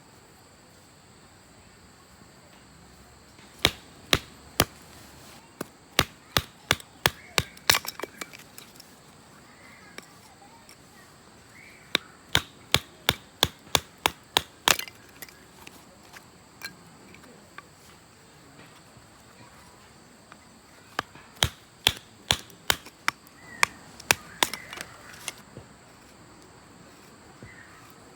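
Sharp wooden knocks struck in quick, regular runs of about two to three a second, three runs with pauses between, like wood being chopped or split.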